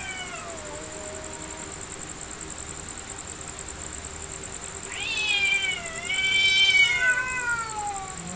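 Domestic cats yowling in a fight. A drawn-out yowl falls away and fades in the first second and a half; after a lull, a louder wavering yowl starts about five seconds in, rising and falling over about three seconds before it trails off low.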